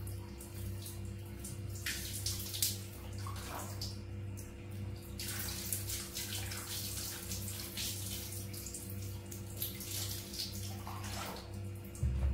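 Water poured from a plastic scoop splashing over a baby monkey held in a hand, in uneven pours that start about two seconds in, are heaviest in the middle and trail off near the end.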